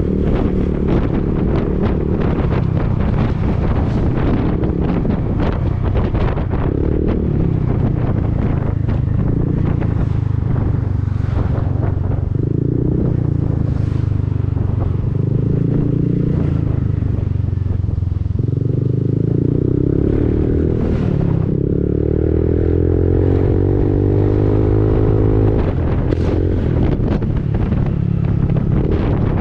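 2019 Honda Forza 300 scooter's single-cylinder engine running through an Arrow aftermarket exhaust, its note rising and falling as the throttle is opened and closed, with wind buffeting the microphone.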